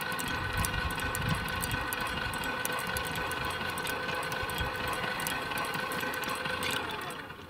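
Electric motor and gearbox of a 12-volt, 240-watt kite winch running at full speed and turning the line spool, a steady whine that cuts off near the end. The motor is probably turning slower than it should because its small battery is run down.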